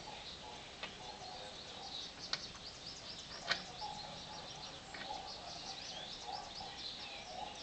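Small birds chirping steadily in the background, with a few sharp clicks, the loudest about three and a half seconds in.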